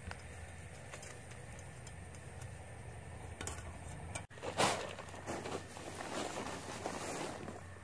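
Dry straw rustling and crunching as it is handled by hand and piled onto a small fire, loudest just after the midpoint and going on irregularly for a few seconds, over a steady low hum.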